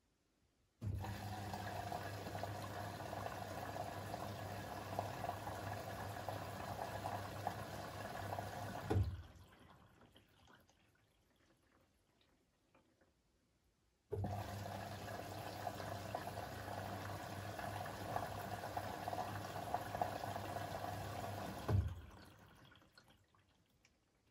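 Siemens iQ700 WG56B2090 washing machine taking in water in two spells of about eight seconds: a steady rush that starts suddenly and stops with a short knock as the inlet valve shuts, then trickles away.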